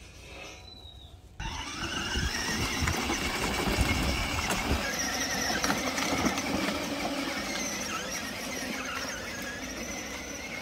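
Children's electric ride-on toy jeep driving over a dirt track: the electric drive motors and gearboxes whine steadily, the whine rising as it sets off, with the plastic wheels rattling and clicking over the rough ground. It starts suddenly about a second and a half in.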